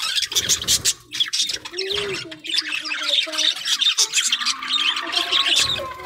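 A flock of budgerigars chattering, a dense run of rapid high chirps, warbles and squawks.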